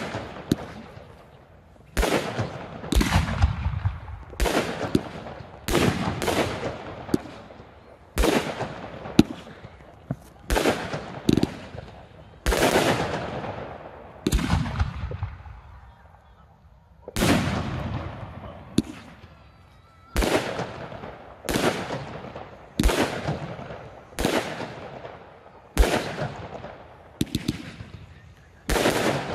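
Aerial firework shells bursting, a sharp bang about every second, each followed by a rolling echo that dies away; the bangs pause briefly about halfway through, then resume.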